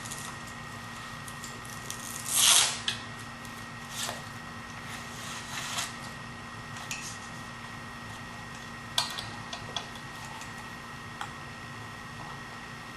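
Handling noises from taking apart a metal pistol-mounting rig: one louder scrape or rub about two and a half seconds in, then scattered light clicks and knocks, over a faint steady hum.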